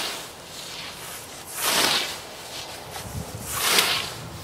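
Hand-built scythe cutting through thick, lush grass: two long swishing strokes about two seconds apart, each swelling and fading as the blade sweeps through.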